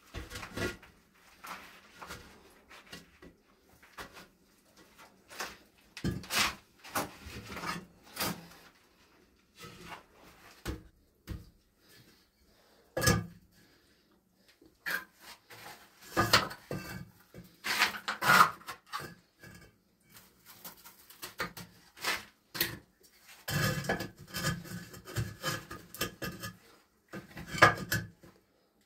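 Irregular knocks, clatters and scraping of objects being handled in a small room, coming in bunches with quiet gaps between.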